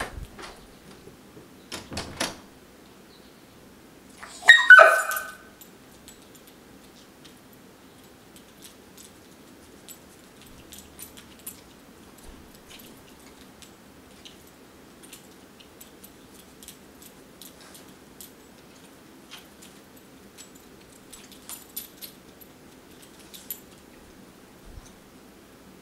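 A dog gives one short, loud bark about four and a half seconds in. Before and after it come light jingling of collar tags and clicks from the dog moving in a wire crate.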